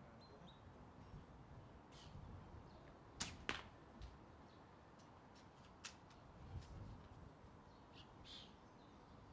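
Faint firing of an SSG10 airsoft spring sniper rifle fitted with a silencer and a Stalker Scorpion piston: a few short sharp clicks and soft thuds, the loudest pair about three seconds in, with the shot itself barely audible.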